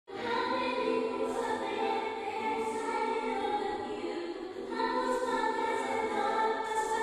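Intro music of choir-like voices holding long, sustained chords, shifting to a new chord about two-thirds of the way through.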